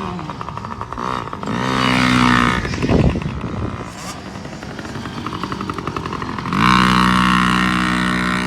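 Dirt bike engines revving on the track. One bike's pitch climbs, then one sweeps past about three seconds in, and another revs up loud near the seven-second mark and holds before easing off.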